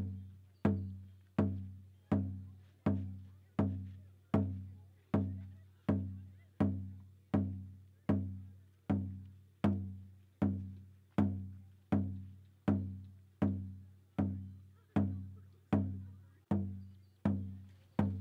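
Background music: a single low note, sharply struck and dying away, repeated at a steady pulse of about four notes every three seconds.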